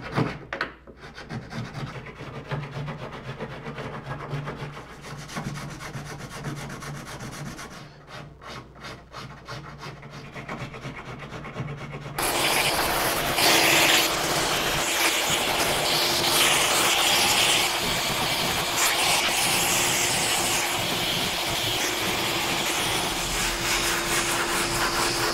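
Small riffler file scraping off hardened epoxy drips along a kayak's cockpit coaming, in short irregular strokes. About twelve seconds in, a much louder steady shop-vacuum hiss with a hum cuts in, as a dust-collecting sanding block rubs over the epoxy-coated wood.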